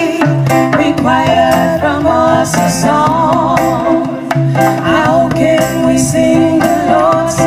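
Live reggae band playing: a steady bass line, drums and guitar, with a wavering melodic line over the top.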